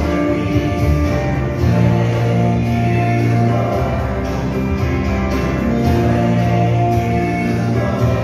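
A song playing: singing over instrumental backing, with sustained bass notes.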